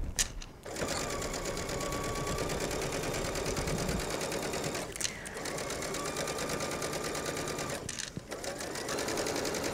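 Brother computerized sewing machine stitching a line of understitching along a jacket facing, running steadily with a light motor whine over quick needle strokes. It pauses briefly twice, about five and eight seconds in, and picks up again each time.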